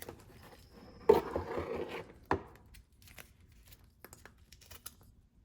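Plastic packaging and kit parts being handled: rustling and clattering, loudest about a second in, a sharp knock just after two seconds, then scattered light clicks.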